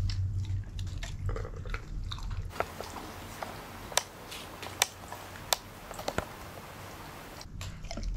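A Belgian Shepherd Groenendael biting and chewing raw meat taken from a hand, with several sharp clicks in the chewing.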